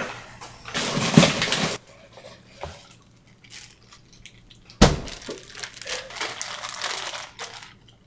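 Ice cubes being freed from a freezer and clinking together: a scraping rustle about a second in, then a sharp crack about five seconds in, followed by a couple of seconds of clattering ice.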